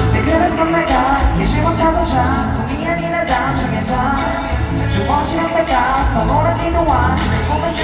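Live pop concert music: a male group singing a song over a steady beat, heard through a concert sound system.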